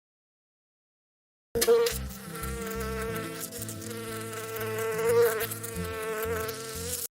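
A flying insect buzzing steadily, starting about a second and a half in and cutting off abruptly at the end.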